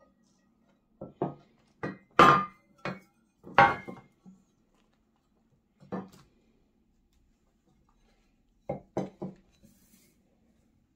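Two stainless steel milk frothing pitchers being handled and set down on a wooden table: a series of short knocks and clinks, several in quick succession in the first few seconds, a single one in the middle, and three quick ones near the end.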